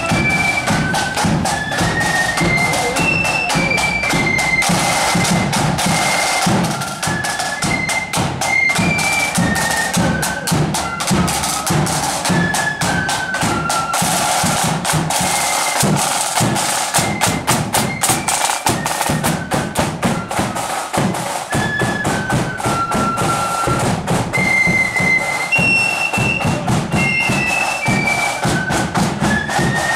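Marching flute band playing a tune: a high flute melody moving note by note over a steady beat of side drums.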